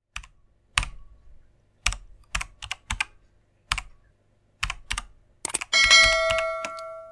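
Computer keyboard keystroke clicks, slow and unevenly spaced, about a dozen in all, then near the end a loud bell-like notification ding of several tones rings out and slowly fades.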